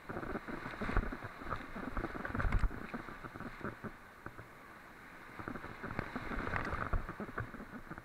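Muffled rush and splashing of whitewater rapids heard through a waterproof camera housing, with irregular knocks and slaps of water hitting the housing and the kayak. It is louder over the first few seconds and again about six seconds in.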